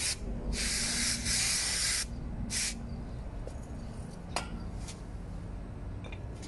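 Aerosol brake cleaner sprayed onto a disc brake pad and rotor to clean them, in hissing bursts: a brief one at the start, a long one of about a second and a half, then a short one. After that there are only a couple of faint clicks.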